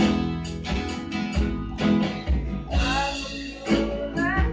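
Acoustic guitars strumming chords over a bass guitar line, in a loose band jam; a voice sings a short phrase about three seconds in and again near the end.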